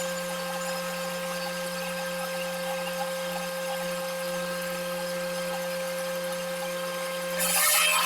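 Wood shaper machine running with a steady motor hum, then, about seven seconds in, a louder rushing cutting noise as the cutter goes into the wood.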